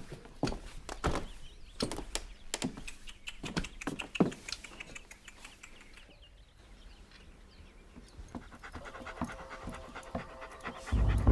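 A dog panting in short, quick breaths, fading out about halfway through.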